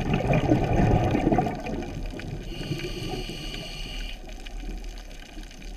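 A scuba diver's breathing heard underwater: a burst of exhaled regulator bubbles rumbling through the first second and a half, then a steady high hiss of an inhale from about two and a half to four seconds in.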